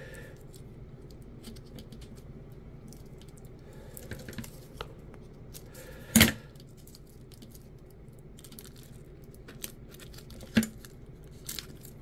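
Hands handling and pressing foam pads onto a LiPo battery's tabs: scattered light clicks and rustles, with a sharper click about six seconds in and another near the end, over a steady low hum.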